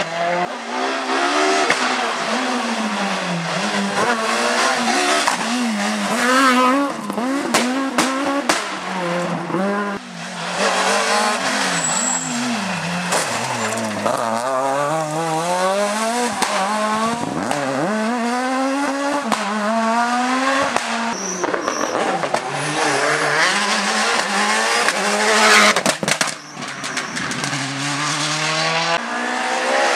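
Rally car engines revving hard and dropping in steps through gear changes as the cars pass one after another through corners, with tyre squeal and sharp cracks over the engine note.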